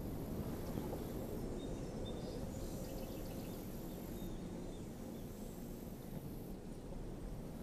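Quiet outdoor ambience: a steady low rumble of background noise, with faint bird chirps about two to three seconds in.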